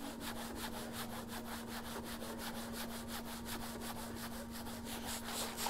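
A detailing mitt scrubbing quickly back and forth on a car's headlight and bumper, a steady rhythmic rubbing of several strokes a second, over a faint steady hum.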